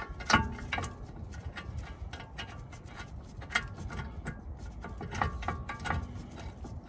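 Irregular light metallic clicks and clinks, several a second, as a greased brake caliper carrier bolt is fed through the hub and threaded in by hand.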